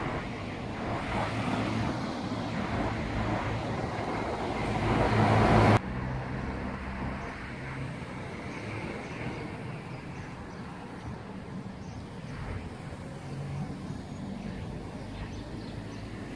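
Road traffic. A loud rushing noise with a low engine hum builds for about six seconds and cuts off abruptly, then lighter traffic follows, with cars passing at low speed.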